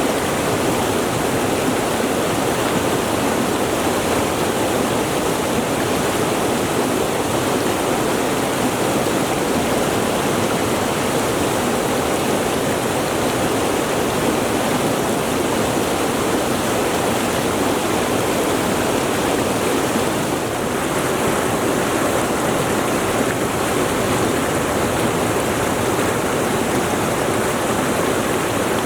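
Mountain river flowing, its water rushing in a steady, unbroken wash.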